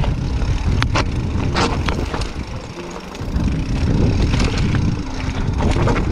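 Mountain bike being ridden over rough ground: a loud, continuous low rumble of tyres and bike noise, with several sharp knocks and rattles.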